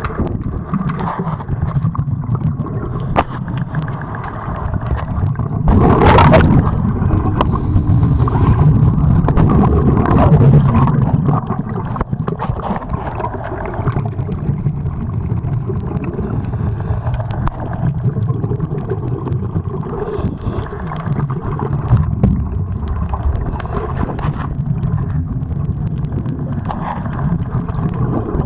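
Muffled underwater rumble of moving water heard through a camera's waterproof housing, with a louder rushing gurgle from about six seconds in that lasts some five seconds, and a few faint knocks.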